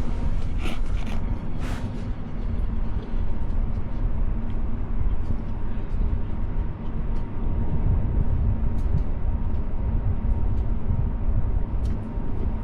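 A steady low rumble with a faint constant hum, like machinery running, and occasional light clicks and knocks.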